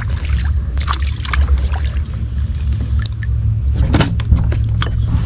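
A steady low rumble with a continuous high, thin insect drone above it, broken by a few sharp clicks and knocks from the kayak and fishing tackle being handled.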